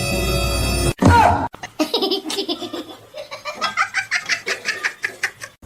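Music cuts off about a second in, followed by a short falling cry and then a person laughing hard in a long run of quick ha-ha's.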